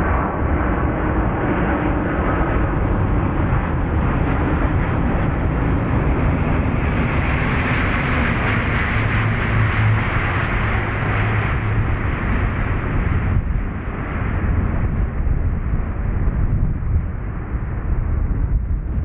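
Airliner's jet engines on a landing approach: a loud continuous rumble that swells and brightens in the middle, with a steady low hum, then eases off.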